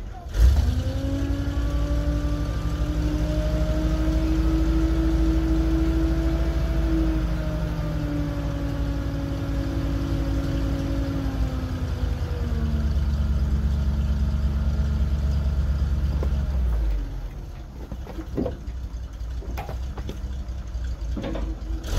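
GMC C7000 dump truck's engine held at raised speed to drive the hydraulic hoist as the loaded bed tips up, a steady tone that climbs a little, then slowly sags under the load and steps down about two-thirds of the way through. About 17 s in it drops back toward idle, with a few knocks near the end as firewood starts sliding out of the bed.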